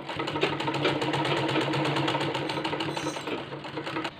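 Domestic sewing machine stitching a t-shirt seam and hem at a steady speed: a rapid, even clatter of the needle over a low hum. It stops abruptly just before the end.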